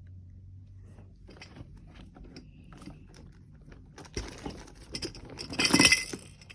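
Plastic fidget toys being rummaged through and handled: scattered light clicks and knocks, with a louder burst of rustling and scraping near the end.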